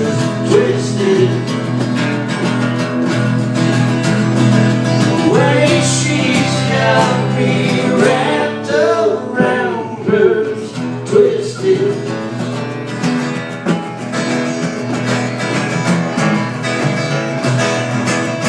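Live country music with guitars playing a stretch without lyrics.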